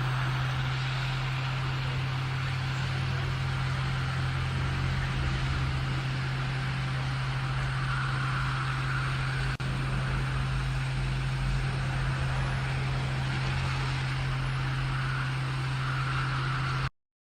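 Hot air rework station blowing steadily: an even rush of air over a constant low motor hum, with a brief break about nine and a half seconds in.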